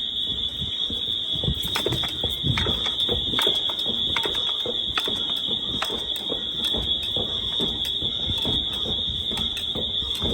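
Wheelock MT fire alarm notification appliances sounding together on different coding options, a chaotic mix: one steady high-pitched tone holds throughout while irregular short blasts and pulses from the other devices overlap it.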